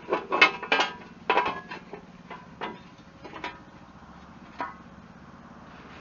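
A run of sharp metallic clicks and clanks, close together for about two seconds and then thinning out to a last knock near the end, over a low steady hum.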